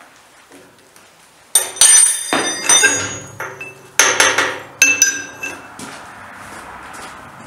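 Steel parts and tools clanking on a milling machine's table: a cluster of sharp metal-on-metal knocks and clinks with a brief ringing, starting about a second and a half in and dying away after about five seconds.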